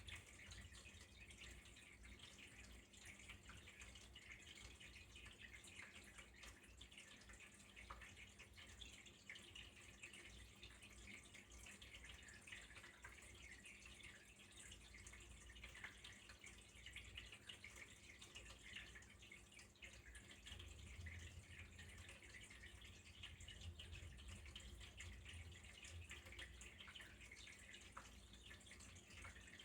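Faint, steady trickle of running water with fine splashing and dripping, over a low steady hum.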